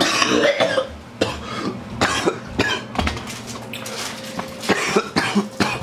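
A person coughing repeatedly in short bursts.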